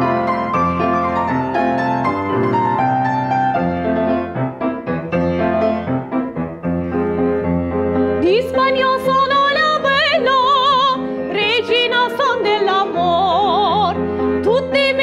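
Piano plays a short introduction, then about eight seconds in a female soprano comes in singing an operatic aria in full classical voice with wide vibrato, over the piano accompaniment.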